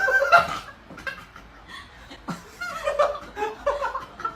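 People laughing and chuckling in short bursts, loudest right at the start and again in the second half.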